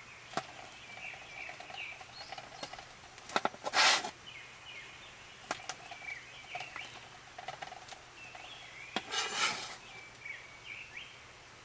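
Cookware being handled, with a few sharp clinks and two short rattling scrapes of pots or utensils, the loudest about four seconds in and another about nine seconds in. Small birds chirp steadily behind it.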